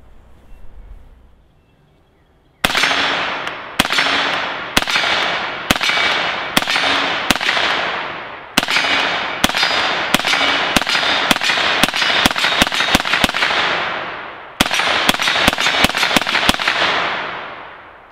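IWI Tavor bullpup with its 9mm conversion kit firing a long string of rapid semi-automatic shots, about three a second and quickening, starting a couple of seconds in. There is a short pause near the end before a last quick run. Each shot trails off in an echo.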